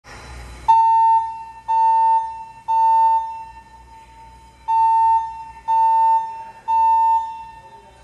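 Wheelock ET70WP fire alarm speaker strobe sounding the temporal-three evacuation tone: two rounds of three steady, high-pitched beeps of about half a second each, with a pause between the rounds. Each beep echoes off the concrete of the parking garage.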